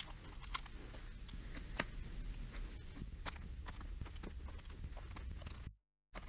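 Scattered small clicks and light taps of hands handling a TI-89 graphing calculator's plastic case and battery compartment, over a low hum. The sound drops out to silence briefly near the end.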